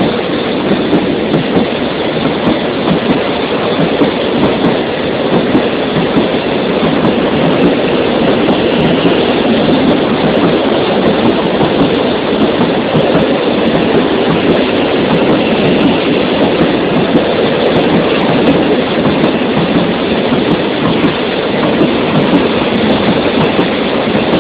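Coal train of covered hopper wagons rolling past, steel wheels running over the rails in a loud, steady rolling noise.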